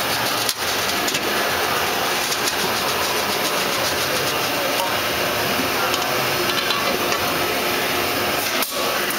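Steady industrial machinery noise from a paint pail filling and conveyor line, an even hiss-like din with no clear rhythm, briefly dipping about half a second in and again near the end.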